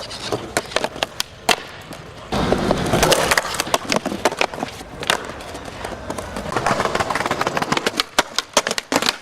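Skateboard wheels rolling on hard ground with many sharp wooden clacks of the board striking the ground.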